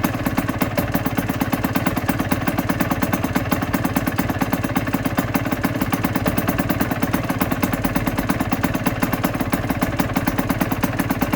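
2008 Aprilia RS125's single-cylinder two-stroke engine idling steadily, with an even, rapid pulse and no revving.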